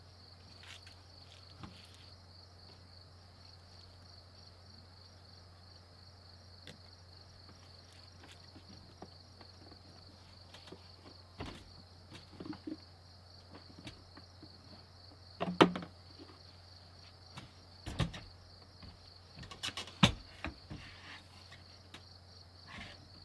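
Crickets chirping in a steady high trill, with scattered knocks and thumps from a person climbing into a pickup's bed under the camper shell; the loudest thumps come about two-thirds of the way in and a few seconds later.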